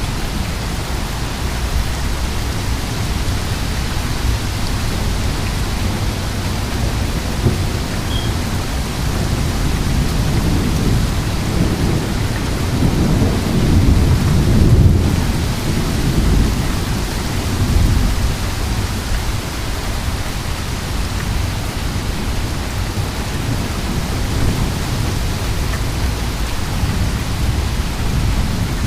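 Heavy thunderstorm rain falling steadily, with thunder rumbling low underneath. A long roll of thunder swells from about ten seconds in, is loudest near the middle, and fades a few seconds later.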